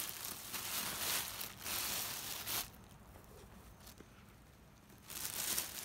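Clear plastic bag wrapped around a bundle of timothy hay crinkling loudly as it is pulled open by hand, for the first two and a half seconds or so; it crinkles again briefly near the end.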